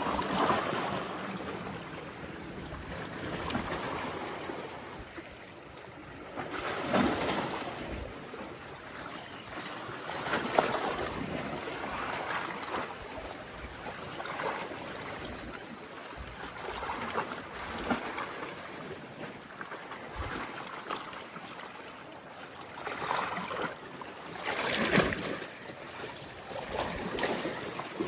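Sea waves washing and splashing among concrete tetrapod breakwater blocks, surging every few seconds, with wind on the microphone.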